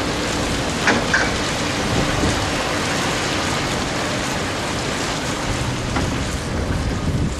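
Scania V8 truck on the move: a steady rushing wash of road and wind noise with a faint low engine hum underneath, and a couple of light clicks about a second in.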